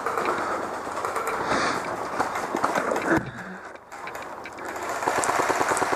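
Airsoft electric gun (a JG G36C AEG) firing full-auto in the second half: a fast, even train of sharp clicks. Before it comes noisy movement with scattered clicks.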